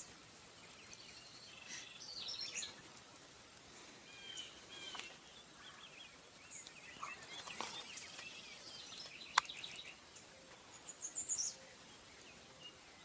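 Small songbirds chirping and singing in short, high calls, several overlapping, with one sharp click about nine seconds in.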